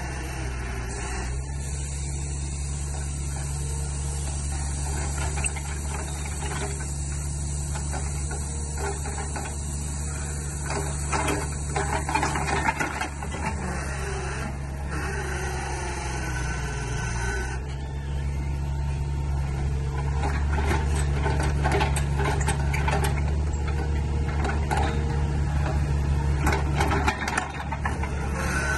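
Diesel engine of a compact loader running steadily under load while its hydraulic auger drills a footing hole, the engine note shifting a little over halfway through. Scattered scrapes and knocks of dirt and rock sound over it.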